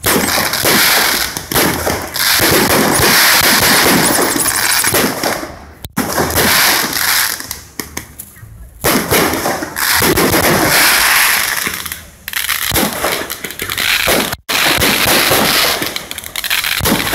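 Fireworks going off: dense crackling and bangs in several long spells, broken by short lulls.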